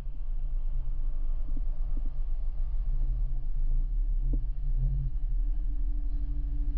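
Sea-Doo jet ski engine running under way while towing a tube, heard as a steady, muffled low rumble from the craft.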